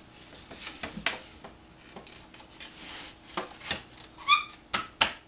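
Wooden wine-rack shelf being handled and slid into the slots of the rack's legs: scattered light knocks and rubbing, with a brief squeak a little past four seconds in and a couple of sharper clicks near the end.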